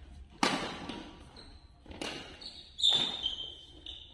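Badminton rally: rackets striking the shuttlecock three times, each crack echoing in a large hall, with shoes squeaking on the court floor near the end.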